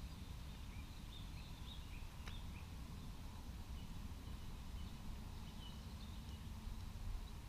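Faint outdoor ambience: scattered short bird chirps over a low, steady rumble, with a single click a little over two seconds in.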